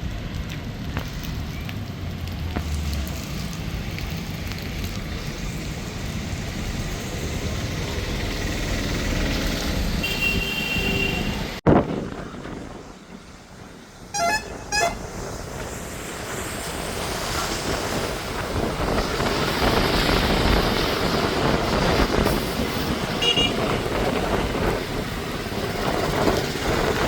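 Steady road traffic noise with vehicle horns honking: two short toots about a third of the way in, shortly after an abrupt loud cut, and a brief horn again later.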